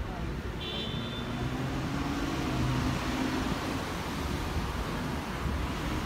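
City street traffic. A car's engine hum swells as it passes, over a steady low rumble of traffic, with a brief high squeak about a second in.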